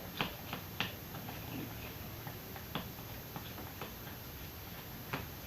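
Light, irregular clicks and taps from stirring pink-dyed slime glue in a container, a few close together about a second in and a single one near the end.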